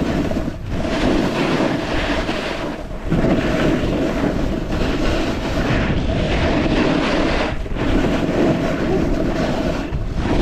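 Snowboard sliding over soft, wet snow: a continuous rough scraping hiss, mixed with wind rushing over the microphone, easing briefly a few times.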